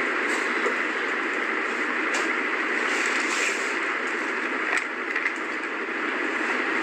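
A steady hiss of background noise, with a few soft clicks as a paper cutout is handled.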